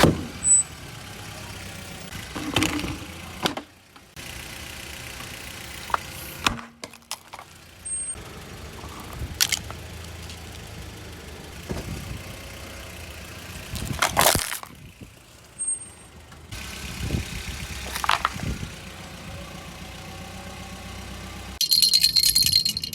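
A vehicle engine running steadily at low revs, broken every few seconds by sharp cracks and crunches as crunchy items are crushed under its tyres. The sound drops out abruptly a few times.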